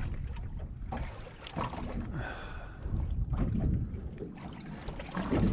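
Wind buffeting the microphone over a small boat drifting on choppy water, with water slapping against the hull in short knocks and a brief higher tone a little after two seconds in.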